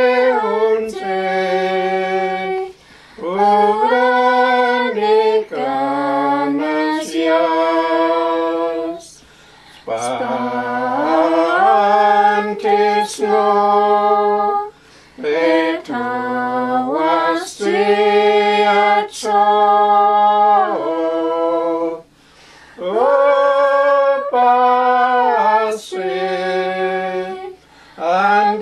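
Women's voices singing a hymn in the Dakelh (Carrier) language, unaccompanied. The tune is slow, with long held notes and short breaks between phrases.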